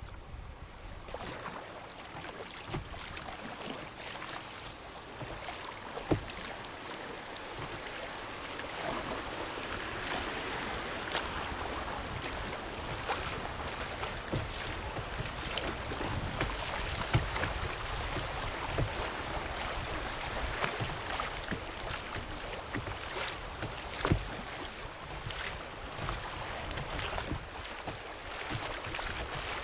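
River water rushing through riffles around a kayak's hull, with water splashing against the bow; the rush grows louder after the first several seconds. A few sharp knocks stand out, about 6, 17 and 24 seconds in.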